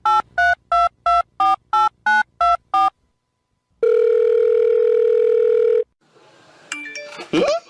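Telephone keypad tones dialling a number, about ten quick two-note beeps, followed by a single ringback tone of about two seconds. A short pitched sound with a falling glide near the end.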